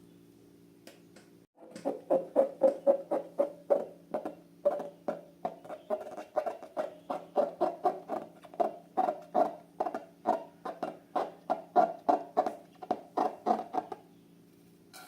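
Slime being squeezed and kneaded, giving a fast run of small wet clicks and pops, about three or four a second, which stops shortly before the end.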